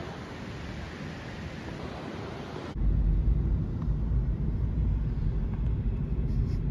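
Car driving along a road: an even hiss of wind and road noise, which cuts abruptly a little under three seconds in to a louder, steady deep rumble of the car's cabin in motion.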